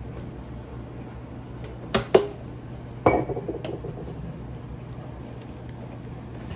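Small hard objects clicking and clattering: two quick clicks about two seconds in, then a sharper clack about a second later that rattles briefly, over a steady low hum.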